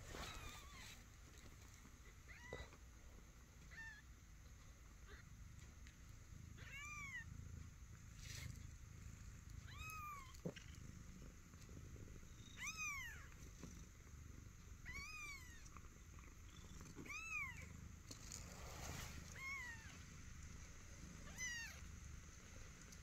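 One-week-old Himalayan kittens mewing: faint, high calls that rise and fall in pitch, about nine of them repeated every two to three seconds.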